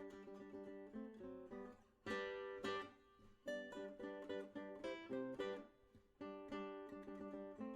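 Background music: an acoustic guitar plucking notes and strumming chords.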